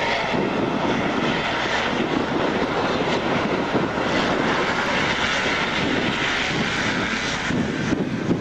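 A pack of pre-1975 250cc motocross bikes, CZ250 two-strokes among them, running hard off the start line. Their engines blend into one loud, continuous buzz.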